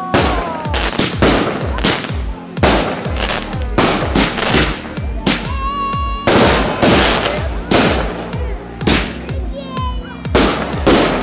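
Background music with a steady beat, mixed with fireworks going off: irregular sharp bangs and crackles, with a few short rising whistles.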